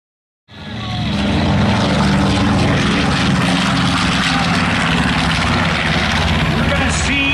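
Piston-engined propeller warbird running steadily at a low, even pitch, starting abruptly about half a second in.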